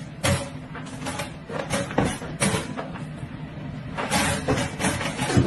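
Wire door of a pet carrier rattling and clanking in a run of knocks as a puppy paws and pushes at it from inside.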